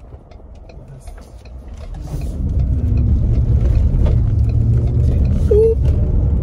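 Low rumble of a car's engine and road noise heard inside the cabin while driving, growing louder about two seconds in and then holding steady.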